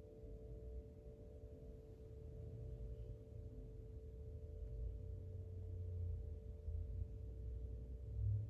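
Spring Wind Chime, a metal chime tuned to the Wood element, ringing on with a sustained cluster of steady tones that slowly fade. A low rumble grows louder toward the end.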